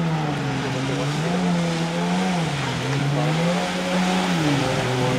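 Jet ski engine revving up and down in pitch about three times over a steady hiss, as the craft is thrown through tight turns.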